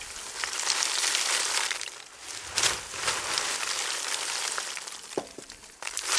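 Crackling, pattering hiss of wood chips and twigs being chipped and thrown out by a PTO wood chipper, with scattered sharp snaps, fading toward the end.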